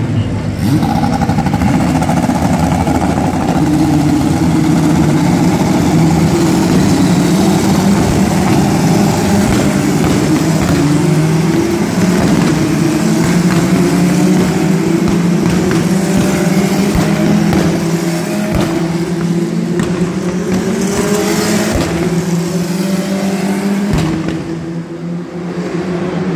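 A field of Formula 4 single-seater race cars accelerating away from the starting grid, many engines revving hard and climbing in pitch through the gears, overlapping one another. The engine noise eases off near the end.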